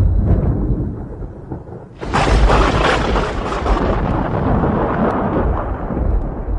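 Thunder sound effect: a low rumble dies away, then about two seconds in a sudden sharp thunderclap cracks and rolls on, slowly fading.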